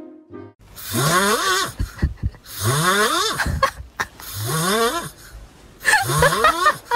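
An animal snoring loudly in a regular rhythm: four noisy, rasping breaths, each rising in pitch.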